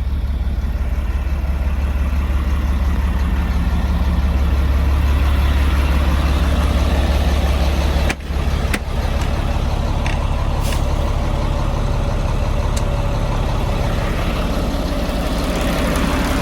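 Semi-truck diesel engine running steadily, a loud low drone, with a brief drop and a couple of clicks about eight seconds in.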